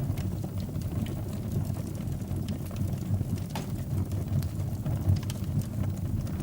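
Wood fire burning in a fireplace: a steady low rumble of the flames with scattered sharp crackles and pops throughout.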